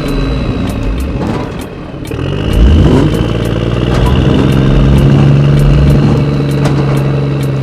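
The motor of a DIY mini tractor running with a steady hum. It drops off about a second in, picks up again with a rising pitch near three seconds, then holds steady. A light ticking runs through it.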